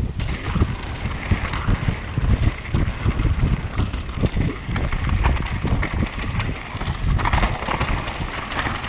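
Wind buffeting the microphone of a mountain bike's action camera on a fast descent, over a steady rumble and quick knocks from the tyres and frame rattling along a dirt trail.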